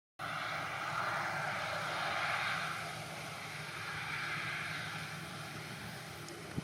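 Claas Lexion 540 C combine harvester running steadily as it harvests barley, a continuous mechanical hiss and drone that eases slightly about halfway through.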